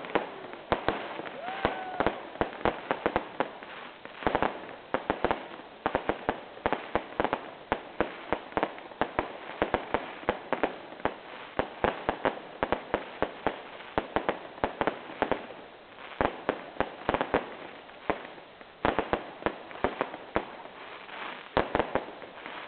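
Fireworks display: a dense run of bangs and cracks from bursting shells, several a second without a break.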